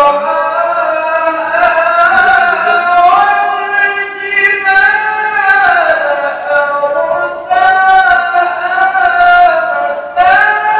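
Male qari reciting the Quran in classical tilawah style, solo through a microphone. The voice sings long, high held notes with slow ornamented turns, in phrases broken by short breaths.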